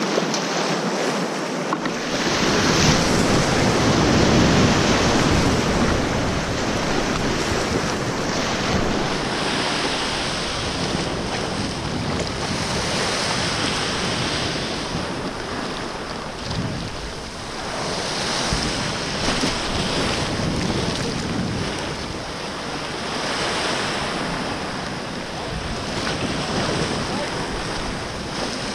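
Sea surf breaking and surging over shoreline rocks, with white water rushing around the kayak's bow and wind noise on the microphone. The roar swells and eases as each wave comes in and drains off the rocks.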